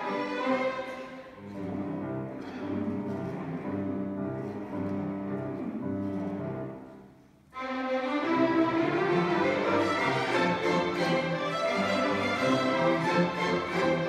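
Youth string orchestra of violins, cellos and basses playing a classical piece. About halfway through the music dies away to a brief near-silent pause, then the full ensemble comes back in suddenly and louder.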